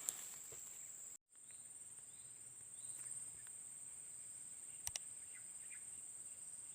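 Insects buzzing in a steady high-pitched drone, broken by a brief total dropout about a second in, with a pair of sharp clicks about five seconds in.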